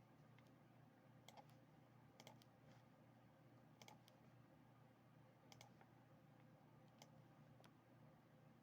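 Faint computer mouse clicks, a dozen or so scattered irregularly, several in quick press-and-release pairs, over a quiet steady room background.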